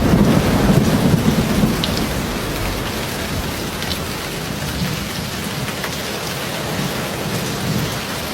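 Steady heavy rain with a low thunder rumble, strongest about the first second and then easing off.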